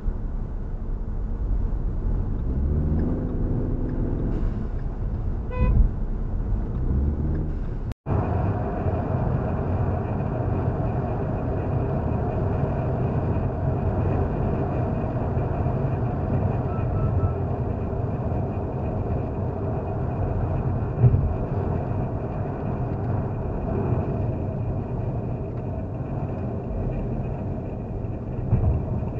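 Road and engine noise heard inside a moving car, with a short car horn toot about six seconds in. After a brief dropout near eight seconds, steady highway tyre and road noise continues.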